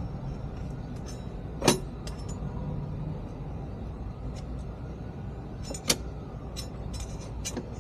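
Metal clicks and clinks from working on a motorcycle brake caliper while the pads are being freed. There are two sharp, loud clinks about two seconds in and near six seconds, and lighter ticks in between, over a steady low rumble.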